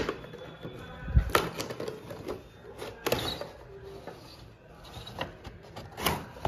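A cardboard toy box with a clear plastic window being handled and pulled open by hand: irregular rustling of card and plastic with a few sharp knocks and taps.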